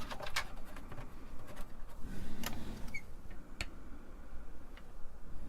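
A few light, separate clicks and taps of small parts being handled as spacers are fitted back between a TRS-80 Model I's circuit board and keyboard, over a faint low hum.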